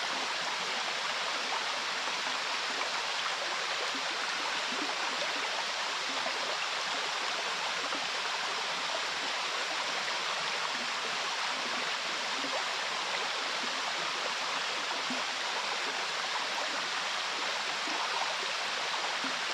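Steady rushing of a river's current mixed with a waterfall's fall, recorded from within the flowing water: an even, unbroken water noise.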